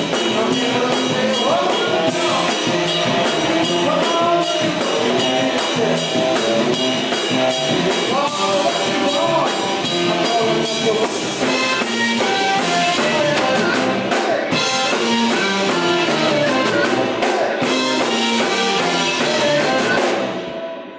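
Live blues-rock band playing, with drum kit, electric guitar, bass and saxophone. The music fades out just before the end.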